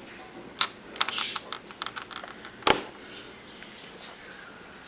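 A series of light, irregular clicks and taps from small hard objects, a quick cluster about a second in and one sharp, louder click a little after halfway.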